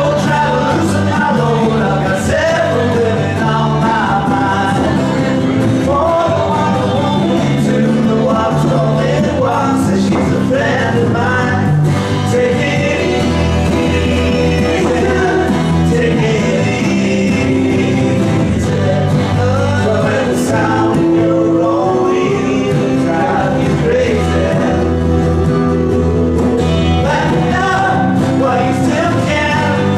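Small live band playing a song with singing over the instruments, in a country or folk style.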